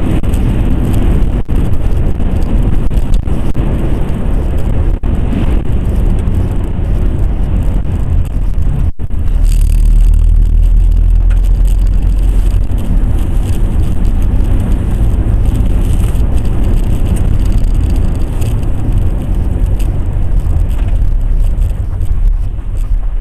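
A car driving through hurricane-force wind, heard from inside: a loud, steady low rumble of engine, road and wind noise, with a brief dropout about nine seconds in.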